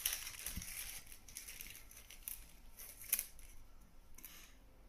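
Small plastic bag of crimps crinkling and rustling under the fingers as a crimp is picked out, with scattered short crackles, the sharpest about three seconds in.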